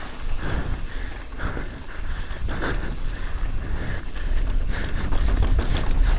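Wind rumbling on the action camera's microphone and tyres running over dirt as a mountain bike descends a trail at speed, the rumble growing heavier in the second half. Over it the rider breathes hard in a steady rhythm.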